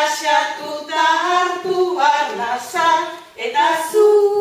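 Voices singing a Basque sung verse (kopla) a cappella, with no instruments, pausing briefly for a breath about three seconds in before the next line.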